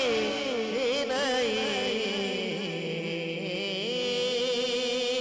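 A man singing a naat into a microphone, drawing out one long sung note: it wavers through ornaments for about the first two seconds, then is held steady.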